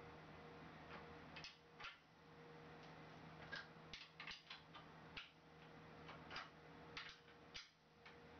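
Faint, irregular clicking of a socket ratchet wrench as the bolts clamping the fingers' rail of a sheet metal brake are tightened hard.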